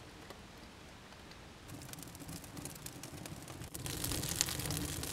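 Campfire of pine needles, bark and split wood catching in a fire pit. Faint at first, it begins crackling about two seconds in, and the crackle grows denser and louder after about four seconds as the flames take hold.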